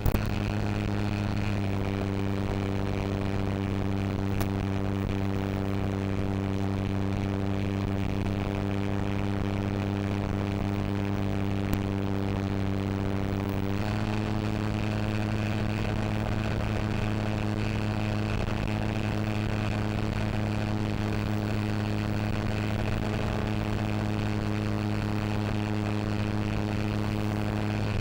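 Electric motor and propeller of an FMS 1400mm Spitfire RC model at steady cruise throttle, a constant humming drone heard from the cockpit-mounted FPV camera. Its pitch steps up slightly about halfway through.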